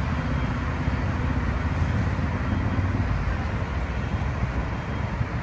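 Hamburg U-Bahn train running over a steel elevated viaduct, heard as a steady low rumble mixed with road traffic noise. The rumble eases slightly toward the end.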